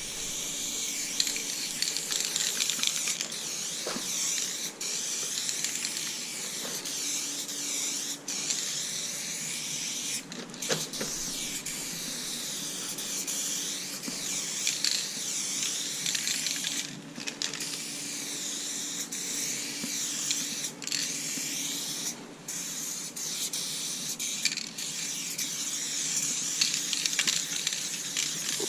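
Aerosol spray-paint can hissing in long, near-continuous strokes as a graffiti piece is filled in, the hiss wavering as the can sweeps back and forth, with a few brief breaks where the nozzle is let go.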